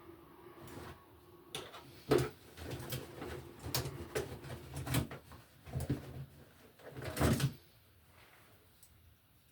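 Hand-tool and wire-handling noises as 14-2 electrical cable is cut and worked for pigtail connections: a series of sharp clicks, snips and rustles over several seconds, stopping shortly before the end.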